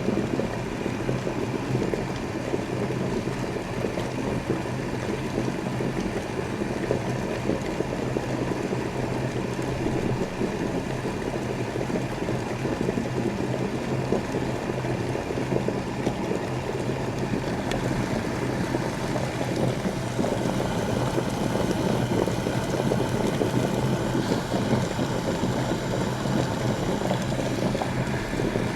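Electric kettle heating water: a steady low rushing noise over a constant hum.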